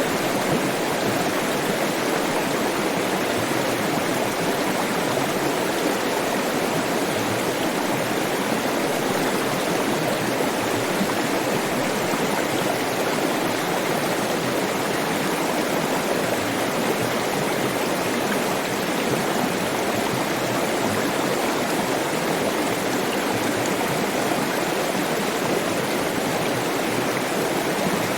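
Flowing water: a stream rushing steadily, a constant even wash of water noise with no breaks.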